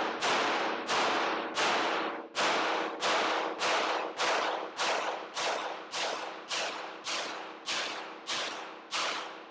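Springfield Echelon 9mm pistol fired in a steady string of about fifteen shots, a little under two a second, each shot ringing out with echo in an indoor range. The string stops shortly before the end.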